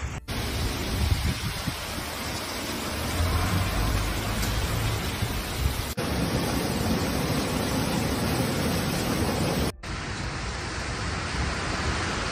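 Steady rushing noise of storm water in three clips cut together. Floodwater gushes out of a culvert from about halfway, and heavy rain falls near the end, each cut changing the sound abruptly.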